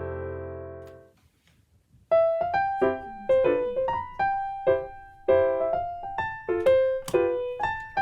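Background piano music: a held chord fades out within the first second, a short pause follows, then a new gentle melody of single notes and chords begins about two seconds in.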